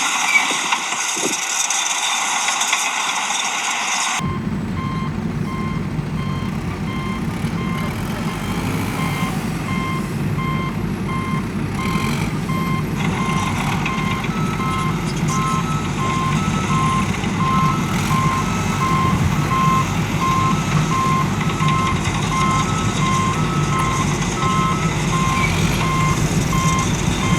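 Vehicle reversing alarm beeping in a steady repeating series, with a second beeper at a slightly higher pitch joining about halfway through. From about four seconds in a heavy vehicle's engine runs steadily underneath; before that the background is a higher hiss.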